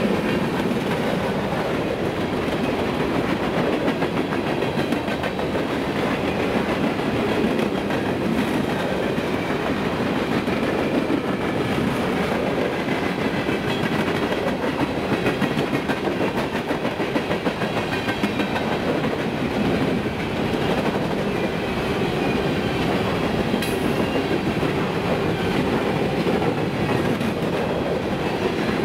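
Freight train of open-top hopper cars rolling steadily past, with a continuous rumble of steel wheels and a clickety-clack as trucks pass over rail joints.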